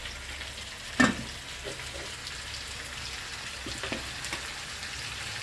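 Food sizzling as it fries in a pan, a steady hiss, with a sharp knock of a utensil against the pan about a second in and a few lighter ticks.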